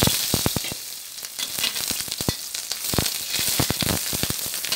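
Ginger sizzling in hot cooking oil in a pan, a steady hiss scattered with many small pops, frying until fragrant. The hiss is loudest at the start and eases a little about a second in.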